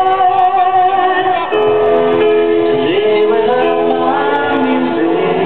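Loud electronic dance music with a female vocal, played through a parade float's loudspeaker system; long held notes that change pitch every second or so.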